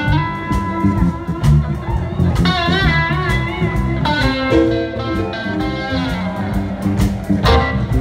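A live blues band playing instrumentally, with electric guitar and saxophone over bass and drums. A held note wavers in pitch near the middle.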